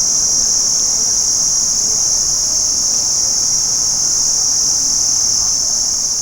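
A chorus of crickets trilling without a break in one steady high-pitched band. It begins to fade out near the end.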